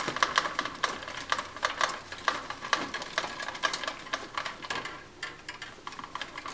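Lineman's pliers twisting two bare copper ground wires together: a run of sharp clicks and scrapes of the steel jaws on the copper, about three a second. The clicks ease off about five seconds in and pick up again near the end.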